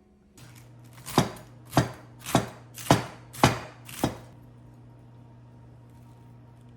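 Kitchen knife chopping on a cutting board: six firm strokes, about two a second.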